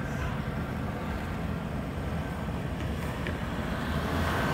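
Road traffic: car engines and tyres running steadily, with a car driving past close by near the end.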